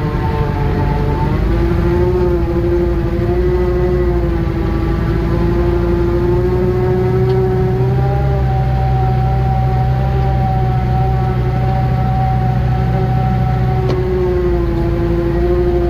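Engine of a small forest machine running steadily as it is driven, its note rising a little about halfway through and easing back down near the end.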